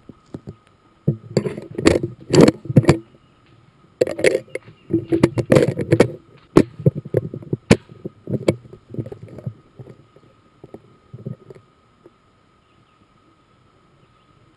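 Close, loud clicks, clacks and rustling of a 1967 Winchester lever-action .30-30 carbine being handled and aimed before firing, in two busy bursts that thin out about twelve seconds in. A faint steady high whine runs underneath.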